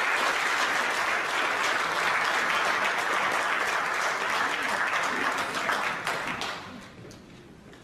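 Audience applauding, dying away about six and a half seconds in.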